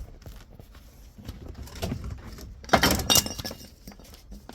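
Metal gearbox parts being handled and set down on a workbench: scattered clinks and knocks, with a louder clatter about three seconds in.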